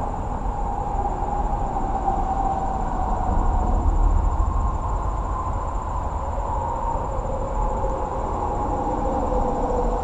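Steady low rumble of a passing heavy vehicle, with a faint hum that slowly falls in pitch.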